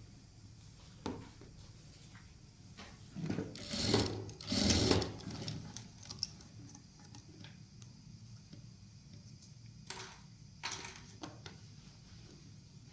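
Sewing machine running in short bursts: a longer, louder run about three to five seconds in, then two brief ones near the ten-second mark, over a steady low hum.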